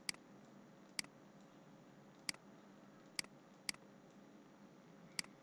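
Computer mouse button clicking six times, single sharp clicks at uneven intervals, over faint room hiss.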